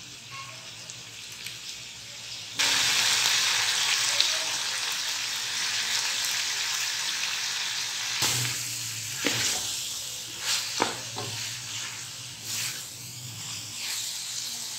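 Beef pieces sizzling in hot oil in a large aluminium pot. The sizzle jumps suddenly louder about two and a half seconds in as chopped tomatoes go in. A wooden spoon then stirs and scrapes the pot, with a few knocks, as the meat and tomatoes are fried down (bhuna).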